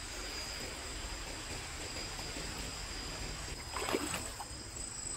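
Shallow stream water trickling over stones, with crickets chirping steadily in two high tones. A short splash in the water about four seconds in.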